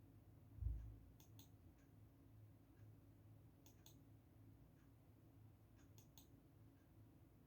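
Near silence with a faint steady low hum, a pair of soft clicks about every two and a half seconds, and one brief low thump under a second in.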